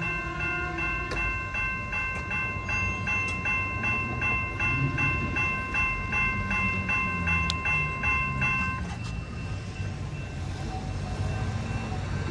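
Electronic railroad crossing bell ringing with rapid, evenly repeated dings, cutting off about nine seconds in as the crossing gates rise. A low train and traffic rumble runs underneath.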